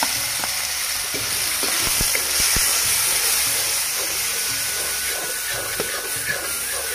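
Chopped tomatoes sizzling in hot oil with fenugreek seeds and spices in a kadhai, a steady hiss. A metal ladle knocks and scrapes against the pan several times in the first few seconds as the masala is stirred.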